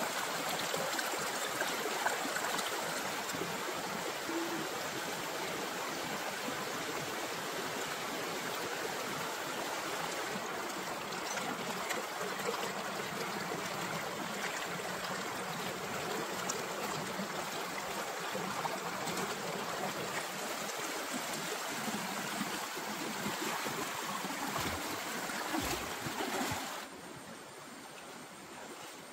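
Shallow, fast stream rushing over rocks and small rapids, a steady rush of water that drops to a softer flow near the end.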